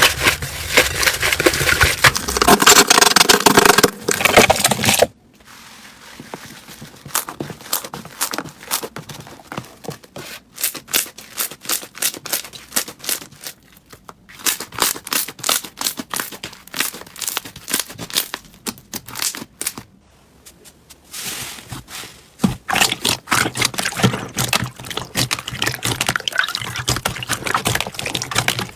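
Slime being squeezed, poked and stretched by hand, giving crackling and popping clicks typical of crunchy slime. It is loud and dense at first, sparser and quieter through the middle, and loud again near the end, with brief breaks between clips.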